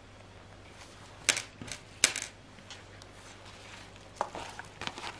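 Small sharp metal clicks from a bow charm's lobster clasp and dangling metal charms as the clasp is opened and hooked onto a pouch loop. There are three clicks around the middle and a few softer ones near the end.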